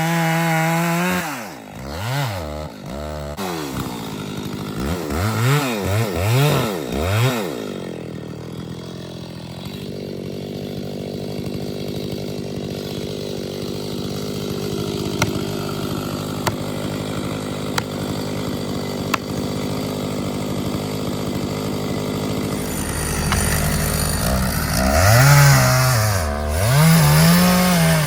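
Chainsaw engine revving up and down several times, then running steadily at an even speed for about twelve seconds, then revving up and down again near the end.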